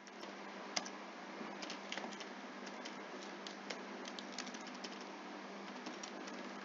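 Typing on a computer keyboard: light, irregular key clicks over a steady low hum.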